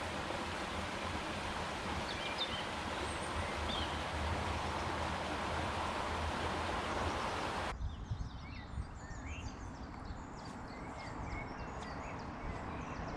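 A steady rushing noise cuts off abruptly about eight seconds in. It leaves quieter outdoor ambience, with small birds chirping over a low wind rumble.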